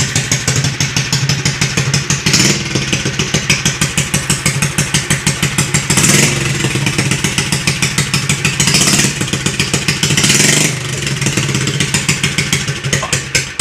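Small edger engine with a homemade straight-pipe exhaust, running bare with its throttle worked by hand: a steady pulsing beat that sounds like a Harley, revved briefly several times.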